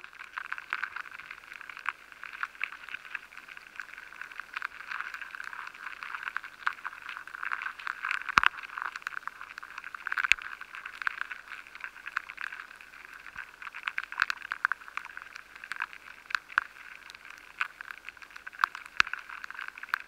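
Rice weevil larvae chewing inside grains of soft wheat, heard through a vibration pickup: a dense, continuous crackle of tiny scrapes and clicks over a steady hiss, with now and then a louder click. The sound is the sign of a hidden infestation in grain that looks undamaged.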